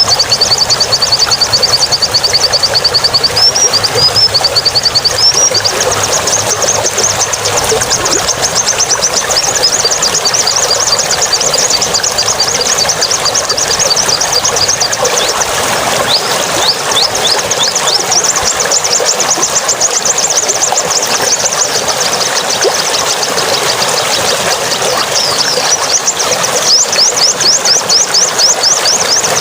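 A small songbird giving long runs of rapid, high, repeated chirps, broken by a short pause midway and then resuming, over a steady hiss.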